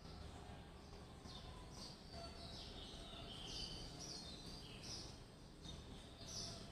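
Faint birdsong: many short, high chirps, some falling in pitch, repeating over a low steady background rumble.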